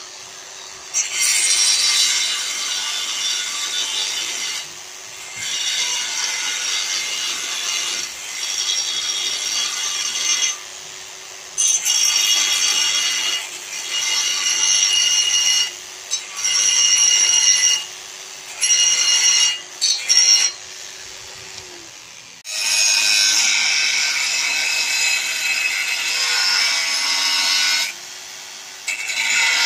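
Bosch GWS 8-100 CE angle grinder running while its disc bites into a clamped steel bar in repeated passes: a harsh grinding screech that starts and stops every few seconds over the steady hum of the motor, with a longer pass about two thirds of the way through.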